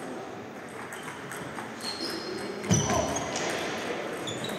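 Table tennis in a large sports hall: ping-pong balls clicking off bats and tables, with voices murmuring in the background and the hall's echo. A few short high squeaks come around the middle, and one heavy thump, the loudest sound, lands a little under three seconds in.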